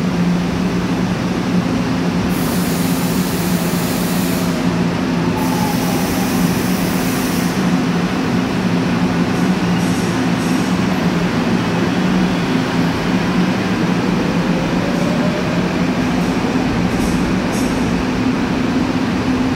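Seoul Line 7 subway train with IGBT-inverter traction pulling away from the platform and accelerating past, under a steady low hum. There are two stretches of high hiss in the first eight seconds, and a tone that rises in pitch over the last few seconds as the train gathers speed.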